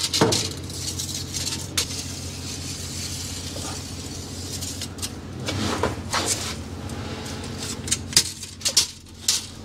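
A steel tape measure blade fed by hand through a hole in a fiberglass bulkhead: scattered light clicks, scrapes and rattles, with sleeve rustling in the middle, over a steady low hum.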